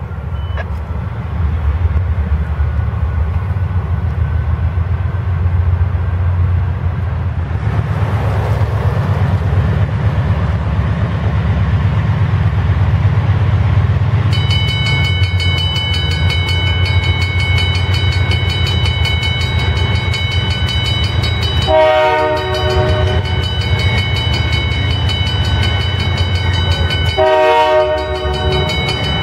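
Canadian Pacific freight train's diesel locomotives rumbling slowly past. About halfway through a grade-crossing bell starts ringing steadily as the gates come down. The locomotive horn sounds two short blasts, one about three quarters of the way in and one near the end.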